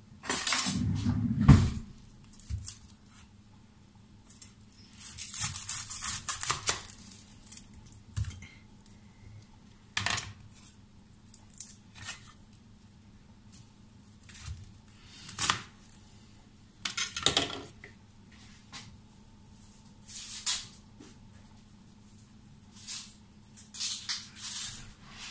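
Kitchen knife cutting an onion on a wooden cutting board: separate sharp knocks of the blade on the board with long pauses between them, and short bursts of rustling and crackling, the longest about five seconds in. More rustling and handling noise near the end.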